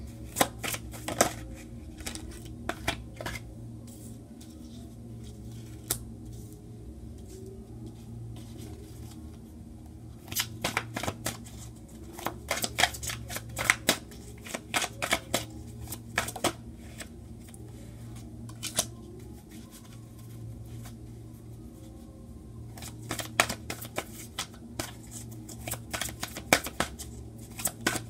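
A tarot deck being shuffled by hand, in several bursts of rapid card clicks with short pauses between, over a steady low hum.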